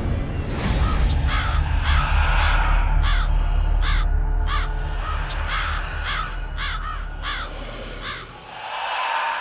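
Crow sound effect cawing over and over, about a dozen caws in quick succession, over a loud deep rumble in a logo sting; a swelling whoosh rises near the end.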